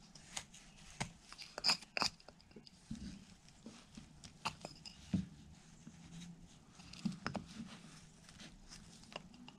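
Carving knife slicing into a basswood block while cutting in a line: faint, irregular small clicks and crackles of the blade biting and cutting the wood, with a few dull knocks.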